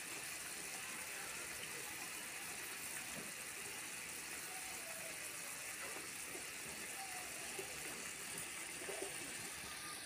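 Small saucepan boiling hard on a gas burner: steady bubbling and hiss.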